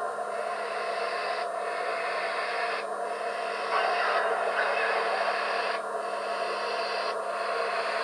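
Sound decoder of an HO-scale Broadway Limited model of Santa Fe 4-6-4 Northern 3751, playing slow steam-exhaust chuffs through its speakers as the model creeps along. The chuffs are long hisses, one about every second and a half.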